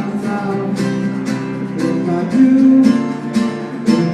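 Acoustic guitar strummed in a steady rhythm, about two strums a second.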